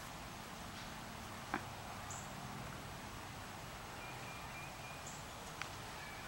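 Outdoor yard ambience: a short, very high chirp repeats about every three seconds, with a thin steady whistle a little after the middle. Two sharp clicks come about a second and a half in and near the end.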